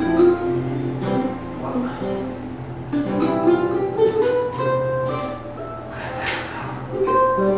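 Acoustic guitar playing plucked notes and chords.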